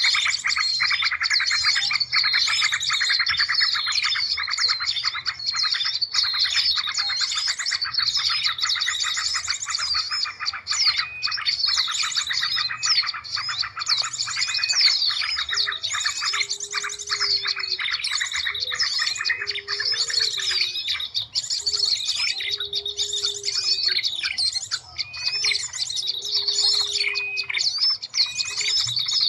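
Bird-lure recording of many small birds' chirps, trills and calls layered densely together. From about halfway in, a short low note repeats roughly every two seconds beneath the chirping.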